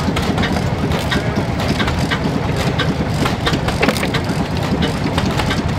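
Vintage stationary engine running with a steady low chugging as it drives a log splitter, with sharp clacks about two to three times a second as the splitter's wedge strokes down and cracks through short logs.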